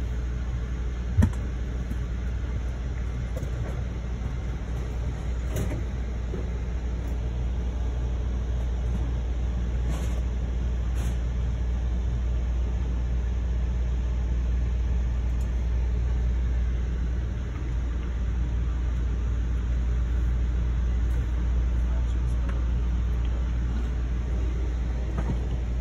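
Steady low rumble and hum inside an Amtrak passenger railcar standing at a station, with one sharp click about a second in and a few faint knocks later.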